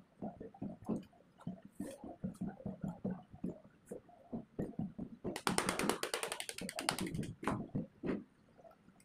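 Rustling and rubbing of cotton tying tape being threaded and pulled through the copper end windings of a motor stator, in short irregular scrapes. In the middle comes a louder stretch of fast scratchy rasping lasting about two seconds.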